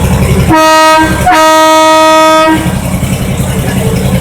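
Locomotive horn blown twice, a shorter blast then a longer one, steady in pitch: the two-blast signal that the train is about to move forward. The locomotive's engine idles with a low rumble before and after.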